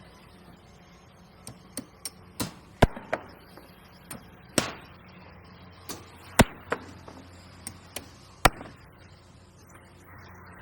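An irregular series of about a dozen sharp knocks or blows, some loud and some light, spread over several seconds, over a steady low hum.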